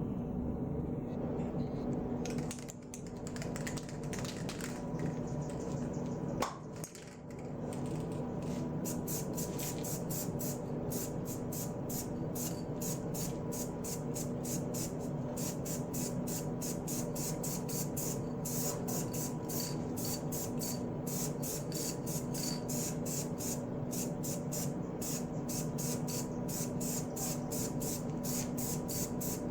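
Aerosol spray paint can hissing in quick even pulses, about three a second, from about nine seconds in, over a steady background hum. Before that come handling noises and one sharp click.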